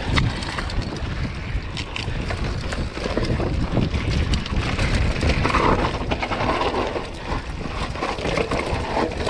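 Wind buffeting a GoPro's microphone during a mountain-bike descent, a steady rumble. Through it come tyres crunching over loose rock and quick knocks and rattles from the hardtail bike on the rough trail.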